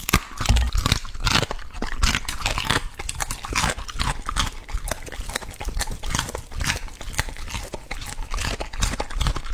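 A border collie crunching and chewing raw asparagus spears, a rapid, uneven run of crisp bites and crunches close to the microphone.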